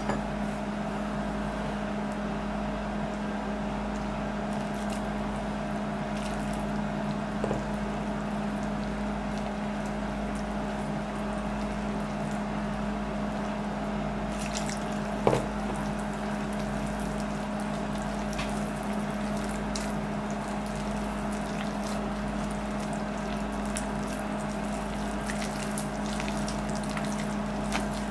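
Steady humming of a kitchen appliance's motor, even and unbroken, with a single light knock about halfway through.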